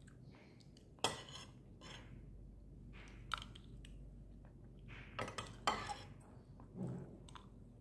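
Metal spoon and fork scraping and clinking against a ceramic plate while scooping fried rice. The clinks come irregularly: a sharp one about a second in, another in the middle, and a quick cluster a little past five seconds.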